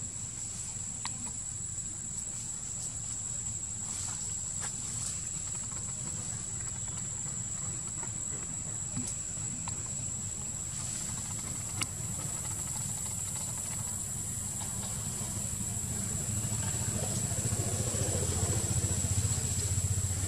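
Forest ambience: a steady high-pitched insect drone over a low rumble that grows louder in the last few seconds, with a few faint clicks.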